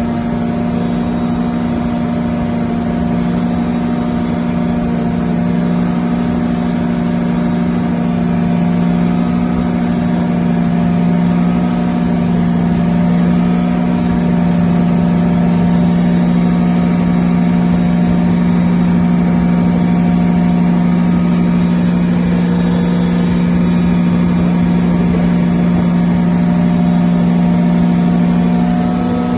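Diesel generator set with a Detroit Diesel engine running steadily, a loud, even drone with a strong low hum that holds one pitch throughout.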